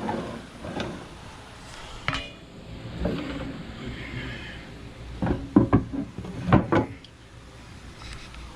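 Clatter and sharp knocks from the switched-off thickness planer being handled by hand. There is a single knock about two seconds in and a louder cluster of knocks between five and seven seconds.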